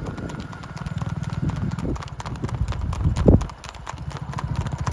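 Horse hooves clip-clopping in a quick, steady rhythm of sharp strikes as the horses are ridden along, with one heavier thump a little past three seconds in.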